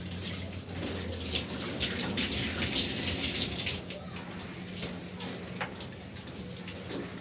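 Running water, splashing and streaming, strongest from about one to four seconds in, over a steady low hum.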